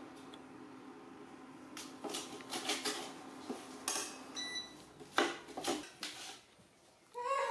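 Kitchen utensils clinking against dishes: a metal ladle and spoon knocking on ceramic plates and bowls in a run of irregular clinks from about two seconds in, one of them ringing briefly. A steady low hum lies under the first couple of seconds.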